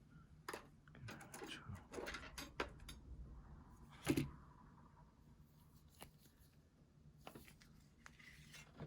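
Small hand tools clicking and scraping lightly against small phone parts while the home button is worked loose, with a cluster of soft clicks early on and one sharper click about four seconds in.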